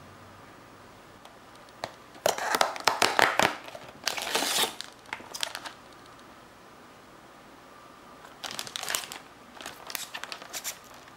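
Plastic packaging of a DIY candy kit crinkling as it is handled, in two spells of rustling: a louder one starting about two seconds in and another about eight seconds in.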